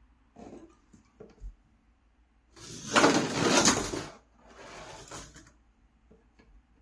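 Rubber-band-powered 3D-printed toy car running across a bathtub, its plastic wheels and drive rattling loudly on the tub for about a second and a half, then a shorter, quieter rattle. A few faint clicks before it, as the car is handled.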